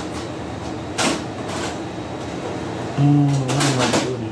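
A steady background hiss with one sharp click about a second in, then low held musical notes from about three seconds in.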